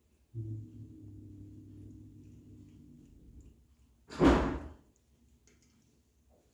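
A low, steady hum starts suddenly just after the start and fades out after about three seconds. Then one loud, heavy thud comes about four seconds in.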